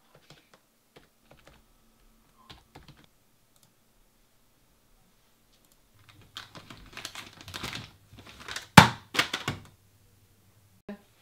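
A few scattered key presses on a computer keyboard. After a pause, a padded parcel is pushed through a door letterbox, rustling as it comes through. The letterbox flap snaps shut with one loud clack, followed by a few smaller knocks.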